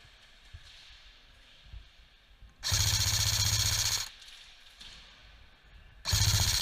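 Airsoft gun firing two full-auto bursts: a longer one of about a second and a half a few seconds in, and a short one near the end.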